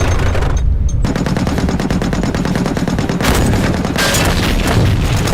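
War-film battle sound of rapid, continuous gunfire, with machine-gun bursts over a constant low rumble. Two louder volleys stand out about three and four seconds in.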